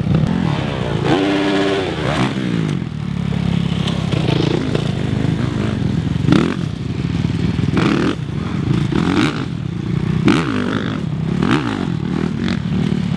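Kawasaki KX450F single-cylinder four-stroke motocross bike engines revving up and down repeatedly as they ride the track, with a loud, sweeping rise and fall in pitch about a second in.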